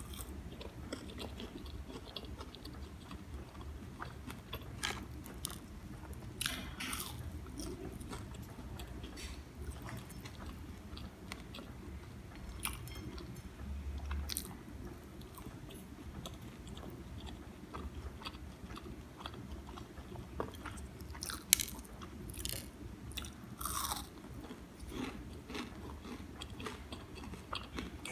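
Close-miked chewing of crispy fried vegetable pakoras, with irregular sharp crunches as the crisp batter breaks between the teeth and one louder crunch about three-quarters of the way through.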